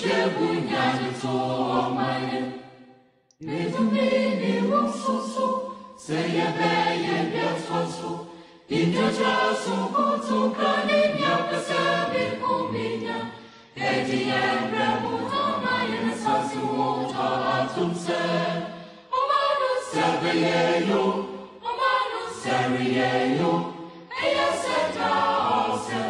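Background music of a choir singing, in phrases separated by brief breaks.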